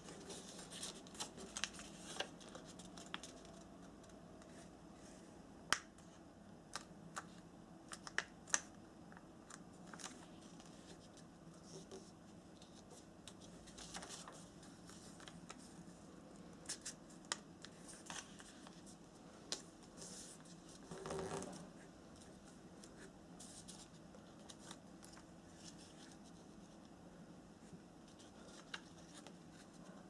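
Origami paper being folded by hand: scattered crisp clicks and soft rustles as creases are pressed and the sheet is turned, with one longer rustle about two-thirds of the way through. A faint steady low hum runs underneath.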